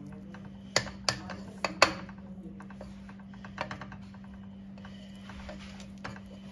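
Spatula knocking and scraping against an aluminium pressure cooker and a plate while chicken pieces are lifted out of cooked dal: a quick cluster of four sharp clacks about a second in, then a few softer taps.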